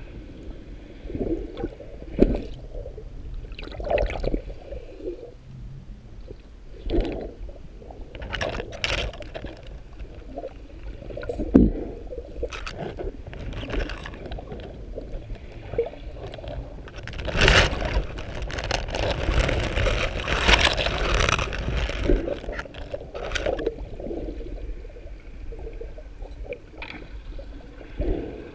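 Water sloshing and gurgling heard through an underwater camera, in irregular surges with a few knocks and a longer, louder stretch of rushing water past the middle.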